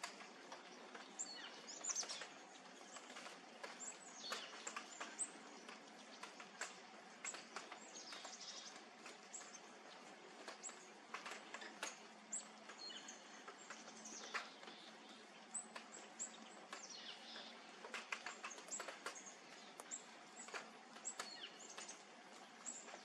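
Hummingbirds' short, high chip calls and ticks, scattered irregularly, over a faint steady hum.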